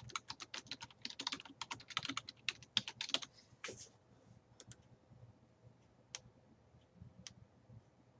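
Typing on a computer keyboard: a quick run of keystrokes for about three seconds, then a handful of single clicks spaced out through the rest.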